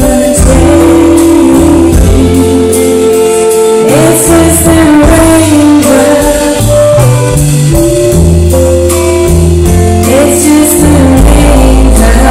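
Live band music with long held melody notes over bass and drums, recorded so loud that it is close to full scale.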